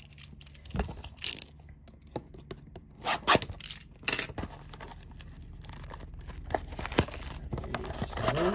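Trading card packs and cards being handled: a few short scrapes and rustles with sharp taps in between, typical of a foil pack being torn open and cards slid out.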